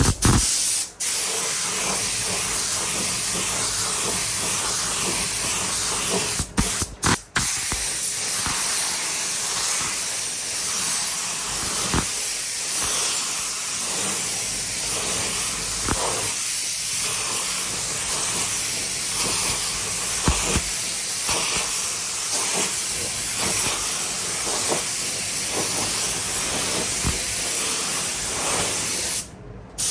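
Compressed-air paint spray gun spraying, a steady loud hiss of air and atomised paint that stops briefly a few times: about a second in, twice around seven seconds, and near the end.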